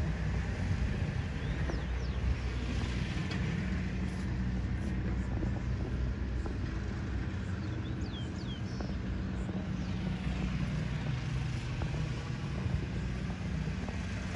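Steady low rumble of outdoor ambience, with a few faint, short high chirps.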